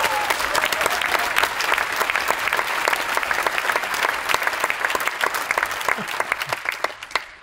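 Large audience applauding, a dense steady clapping that dies away near the end.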